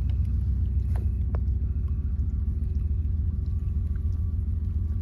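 A steady, deep rumble with a couple of light clicks about a second in; it cuts off suddenly at the very end.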